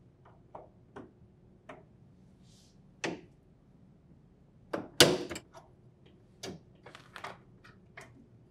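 Irregular plastic clicks and knocks as a freezer drawer gear is pried off its slide rail with a flathead screwdriver and handled, with the sharpest clack about five seconds in.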